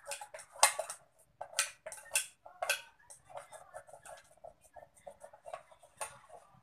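Homemade slime being worked by hand: a string of irregular sticky clicks and crackles, loudest in the first three seconds.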